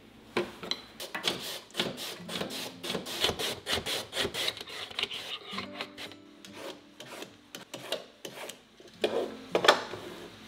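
Raw potato being julienned on a mandoline slicer: repeated rasping strokes of the potato sliding across the blade, about two to three a second. Two louder knocks near the end.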